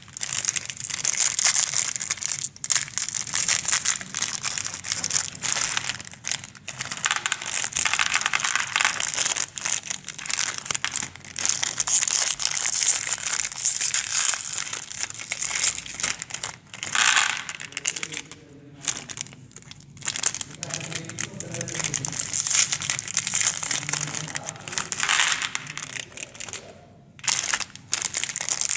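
Foil-lined plastic candy wrappers crinkling and tearing as they are torn open by hand, continuing with a few short pauses.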